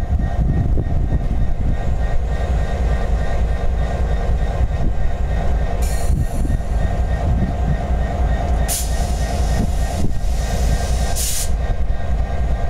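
Diesel locomotives idling, a DME GP38-2 with its EMD 645 two-stroke V16 and a Canadian Pacific unit, giving a steady low rumble. Three short hisses about six, nine and eleven seconds in.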